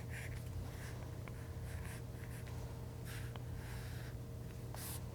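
Stylus drawing short strokes across an iPad screen, a faint scratchy hiss with a few light taps, over a steady low electrical hum.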